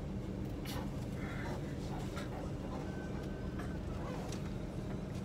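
Diesel engine of a Mitsubishi Fuso Panther bus running steadily at low speed, heard from inside the cabin as a low hum. A brief high tone sounds about three seconds in.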